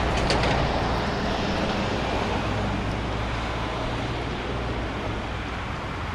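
Distant GE C40-8 diesel locomotive giving a low, steady rumble as it approaches, with wind on the microphone.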